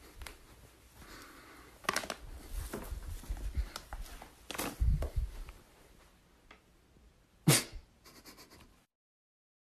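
Irregular rustling and low thuds as a foil coffee bag is picked up by hand and set back down on carpet, with a sharp click near the end; the sound then cuts off suddenly.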